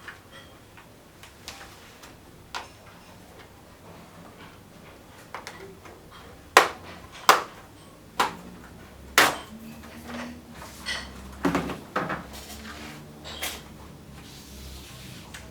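Sharp clicks and knocks of a laptop and its parts being handled during a RAM and SSD upgrade: a few faint ticks at first, then a run of louder knocks through the middle, tailing off into lighter clicks.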